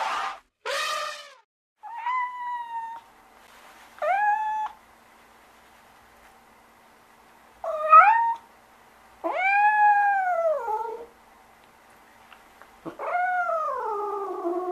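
An elephant trumpets twice in the first second and a half. Then a tabby cat meows five times, and the later meows are longer and drawn out, falling in pitch at the end.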